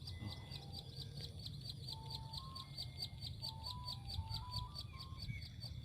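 Birdsong outdoors: a high chirp repeated evenly, about seven times a second, with short whistled notes at shifting pitches over a low, steady rumble.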